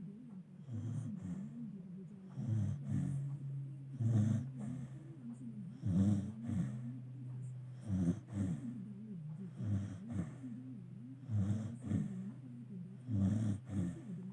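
A sleeping dog snoring, with one low snore about every two seconds in a steady breathing rhythm.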